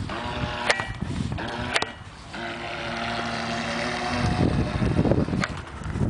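Muffled rubbing and sharp knocks from the camera being handled against clothing, several times. In the middle, a remote-control speedboat's motor runs at a steady pitch for about two seconds.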